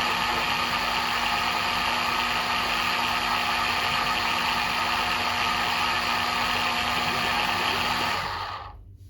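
Small electric motor running steadily with a constant hum and hiss, then switched off about eight seconds in, the sound dying away quickly. This is most likely the electric oil-extraction pump that has been drawing transmission oil out through a tube.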